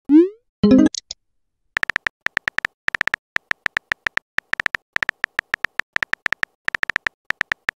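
Phone on-screen keyboard tapping sound effects: rapid clicks, one per letter, as a text message is typed. Right at the start a short rising 'bloop' marks a message being sent, followed about half a second later by a brief burst of sound, before the typing clicks run on.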